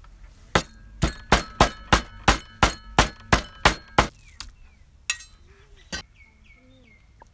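Cleaver chopping raw pork into mince on a wooden chopping block: eleven sharp strikes at about three a second, the blade ringing between them, stopping about four seconds in. Two lighter knocks follow.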